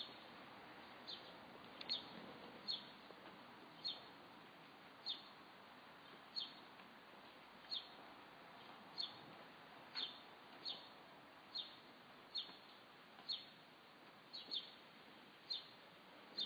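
A bird repeating a short, high chirp that drops in pitch, about once a second, over a faint steady hiss of outdoor background.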